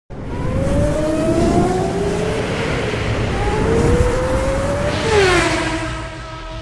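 Race-car engine sound effect revving, its pitch climbing twice over a deep rumble, then dropping sharply about five seconds in as it passes by and settling into a steady drone.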